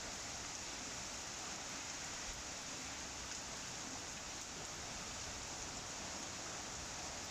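Light rain falling, a steady even hiss.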